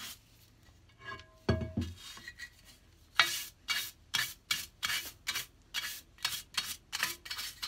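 A stiff hand brush scrubbing the bare cast-iron body of a Stanley No. 8 jointer plane dry. There is a short knock about a second and a half in. From about three seconds in come brisk back-and-forth strokes, about three a second.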